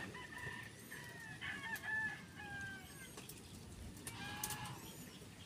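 Chickens calling: a drawn-out rooster crow with falling pitch over the first few seconds, and a further short call about four and a half seconds in.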